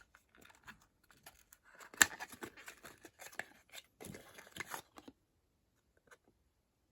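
Hands handling a small cosmetic product and its packaging: scattered clicks, taps and rustling, with one sharp knock about two seconds in and a busier stretch of handling around four to five seconds, after which the sound stops.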